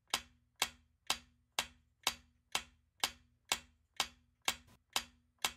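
Countdown-timer ticking sound effect: evenly spaced clock-like ticks, about two a second, marking the seconds left to answer a quiz question.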